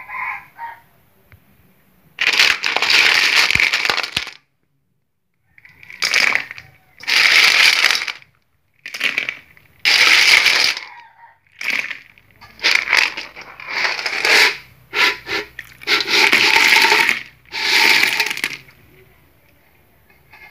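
Snails tipped into a metal wok of hot water, their shells clattering against the pan and splashing, in a dozen or so separate bursts a second or two long.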